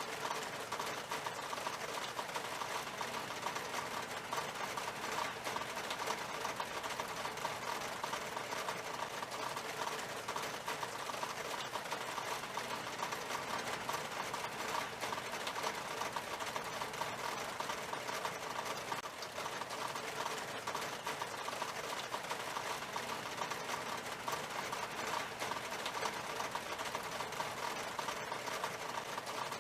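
Rain falling on window glass: a steady, dense patter of drops.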